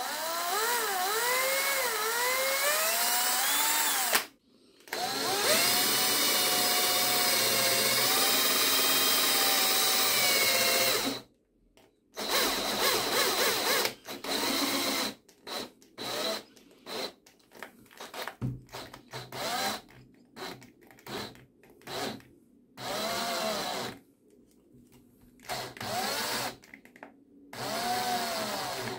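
iMax 24 V cordless drill driving a stepped cone bit into wood. The motor whine sags and recovers under load, then from about 12 seconds in it cuts in and out in short bursts. This stop-start running is the sign of worn battery cells that can no longer deliver enough current.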